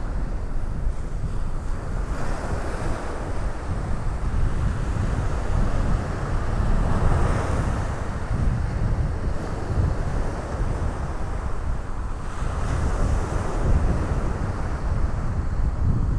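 Gulf of Mexico surf breaking and washing up the beach, with waves swelling louder about seven seconds in and again near thirteen seconds. Wind buffets the microphone throughout.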